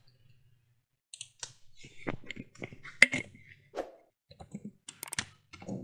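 Computer keyboard typing: irregular runs of key clicks, starting about a second in.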